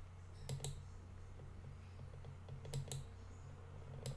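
A few faint, short clicks from computer controls as photos are paged through: two quick pairs and a single click near the end. A low steady hum runs underneath.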